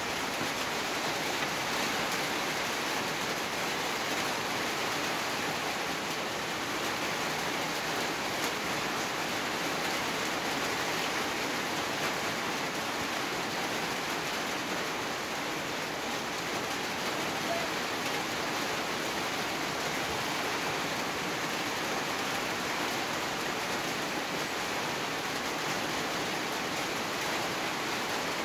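Large pot of rosogollas (chhena balls) boiling hard in sugar syrup: a steady, even frothing hiss.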